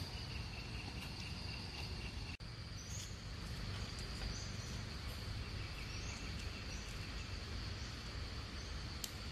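Outdoor ambience of insects droning steadily at a high pitch, with a lower insect trill joining twice for a couple of seconds, over a low background rumble. The sound cuts out for an instant about two seconds in.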